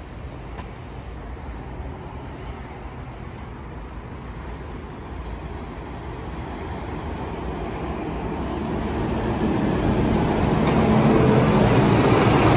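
City bus approaching and passing close by, its engine and tyres growing steadily louder to a peak near the end.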